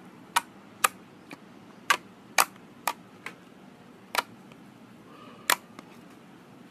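Glossy slime pressed and folded by fingers, making a string of sharp, irregular pops as trapped air bursts from it, about nine in all.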